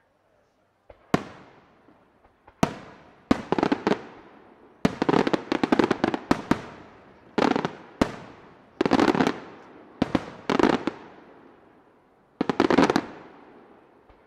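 Aerial firework shells bursting one after another, starting about a second in: about a dozen sharp bangs, several of them breaking into dense strings of rapid crackling, each fading with an echoing tail.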